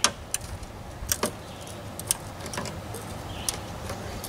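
Scattered sharp metallic clicks and clinks from hand tools working on metal fasteners, coming singly and irregularly about once or twice a second.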